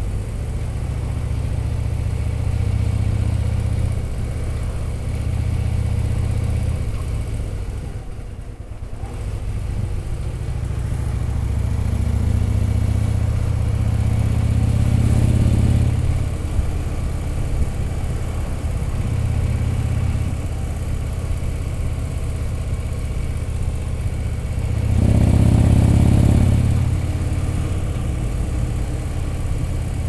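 Large touring motorcycle's engine running under way, heard from the rider's seat. The pitch climbs as it accelerates about twelve to sixteen seconds in, the level dips briefly around eight seconds in, and a louder burst of noise comes around twenty-five seconds in.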